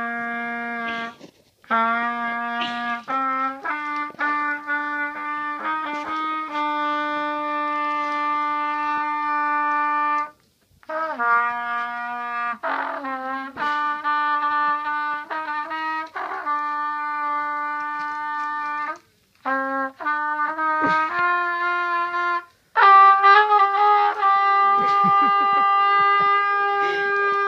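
Trumpet playing a slow tune of long held notes, in phrases separated by short pauses; the last phrase is higher and the loudest.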